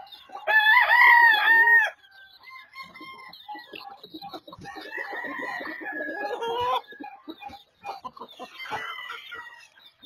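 Gamefowl roosters crowing: a loud, close crow about half a second in, lasting over a second, then another long crow around five seconds in and fainter calls near the end.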